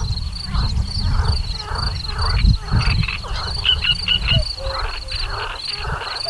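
Frogs croaking in chorus, calls repeating about twice a second, with a faster high-pitched trill repeating above them and a few short high chirps around the middle. A loud low rumble runs underneath and eases in the last second or so.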